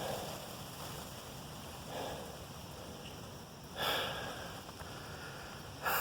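A person breathing hard after climbing a steep hill: heavy breaths about every two seconds, the ones about four seconds in and at the end the loudest.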